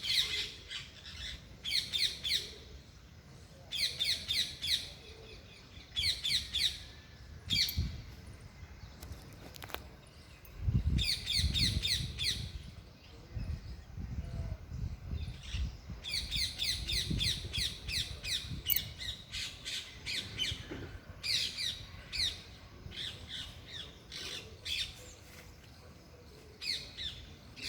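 Parrots squawking loudly in repeated bouts, each a quick run of sharp, high-pitched calls lasting about a second, with short pauses between bouts. A faint low rumble runs under the calls through the middle.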